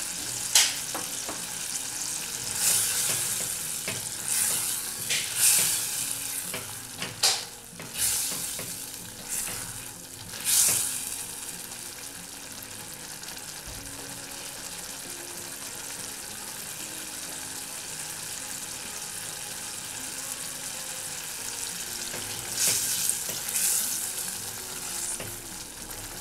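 Passion fruit pulp, sautéed onion and sugar sizzling and bubbling in a stainless steel saucepan, a steady hiss with louder spurts now and then through the first ten seconds and again near the end, when a spatula stirs through it.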